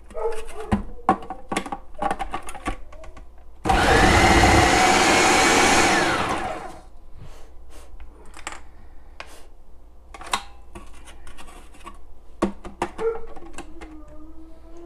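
Food processor motor running for about three seconds as an apple is sliced through the feed tube, its whine rising and then winding down as it stops. Sharp clicks and knocks of the plastic feed tube and pusher being handled come before and after.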